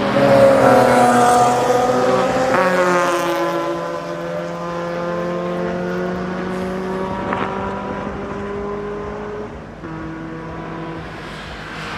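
Historic racing cars' engines running at high revs as they pass on track. The loudest comes by about half a second in and another joins about two and a half seconds in, their engine notes sliding lower as they go by and fade.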